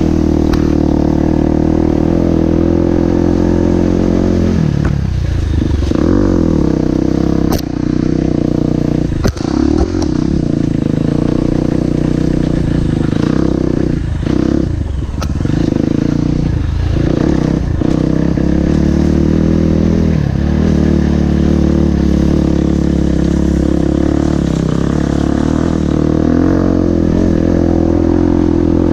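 Off-road motorcycle engine running steadily on a downhill trail ride, its pitch dropping and picking up again several times as the throttle is eased and reopened. A few sharp clatters from the bike on rough ground come a few seconds in.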